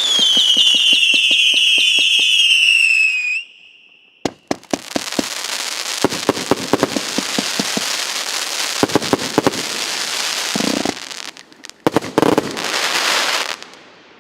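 Consumer firework battery (cake) 'Night Starfall' firing: a loud shrill whistle falling in pitch for about three seconds, then sharp bangs and dense crackling bursts, with a last volley of bangs near the end before it dies away.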